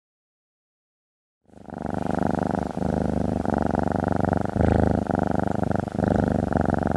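Cat purring, starting about a second and a half in after silence: a steady pulsing purr broken briefly every second or two.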